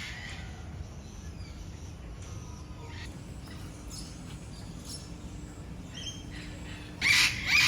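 Birds chirping here and there over a steady low rumble, then near the end a loud bird breaks into a run of harsh, repeated calls about twice a second.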